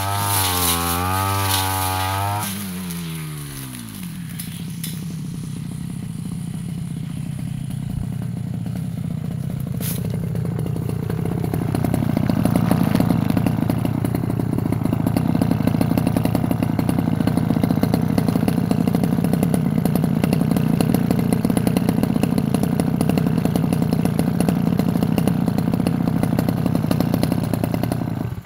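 Yasuka petrol brush cutter running at high revs, its note wavering as it cuts. About two and a half seconds in the throttle is released and the pitch falls away to idle. It then idles steadily, growing louder over the next several seconds, and cuts off suddenly at the very end.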